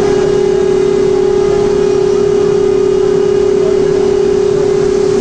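Loud steady industrial hum at one constant pitch over a rushing noise: an induction furnace and its fume-extraction system running during slag-off.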